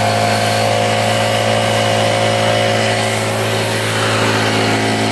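Engine-driven leaf blower running steadily at high throttle, its motor hum over a rush of blown air, while clearing wood chips from grass.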